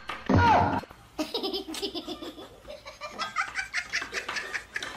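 Laughter in quick repeated bursts, from about a second in to the end. Just before it comes a short loud sound with a falling pitch.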